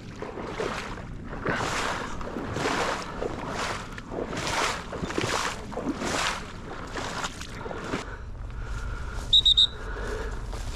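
Footsteps sloshing through shallow water and mud, roughly one step a second. Near the end come three short, sharp blasts on a whistle in quick succession, the loudest sound.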